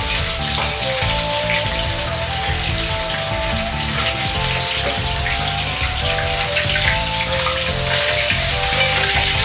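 Battered chicken and bamboo shoot deep-frying in hot oil in a wok: a steady sizzle as they are stirred and lifted out with a ladle and strainer. Background music with a melody and bass line plays over it.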